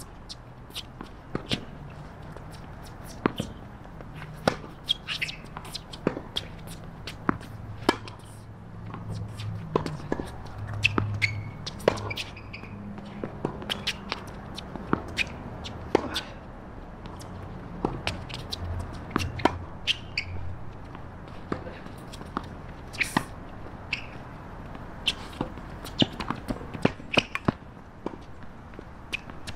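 Tennis rally play: sharp pops of racket strings striking the ball and the ball bouncing on the hard court, about one every second or so, with footsteps and shoe scuffs between shots.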